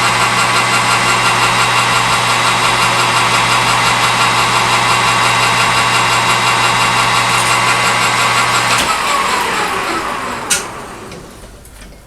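Metal lathe running under power with a steady hum and whine, then switched off about nine seconds in, its whine gliding down as the spindle coasts to a stop. A single sharp click follows shortly after.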